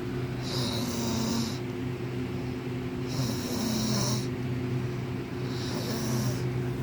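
A man snoring in slow, regular breaths: three snores about two and a half seconds apart, over a steady low hum.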